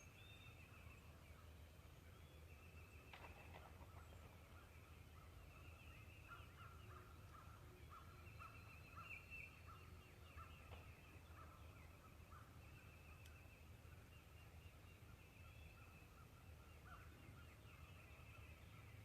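Faint, distant wild turkeys gobbling, short rattling calls repeating throughout, over a low wind rumble.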